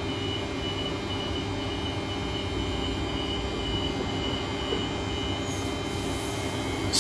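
Queensland Rail electric multiple unit standing at a platform with its steady electrical hum, under a rapid high beeping of about two beeps a second: the door-closing warning, which stops about five and a half seconds in as the doors shut. A short loud hiss comes at the very end.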